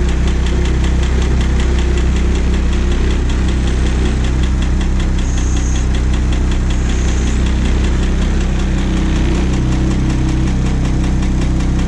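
International DT466 inline-six diesel idling steadily with an even, rapid diesel clatter, heard from inside the bus's cab. The engine is warming up after a cold start at about 35 degrees.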